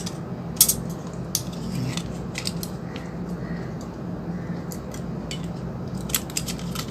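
Scattered clicks and taps of plastic parts being handled and pressed together while reassembling a disassembled infrared TV remote, with a cluster of quicker clicks near the end, over a steady low background hum.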